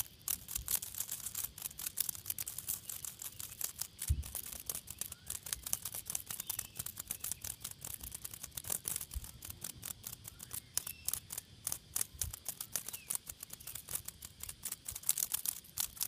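A cicada struggling in a redback spider's web, beating its wings against dry leaves and gravel: a rapid, irregular crackling and ticking that comes in fits and starts, with a soft thump about four seconds in.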